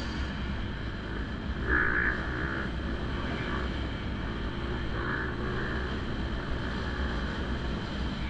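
Dirt bike engine running while riding a motocross track, its pitch wavering up and down with the throttle.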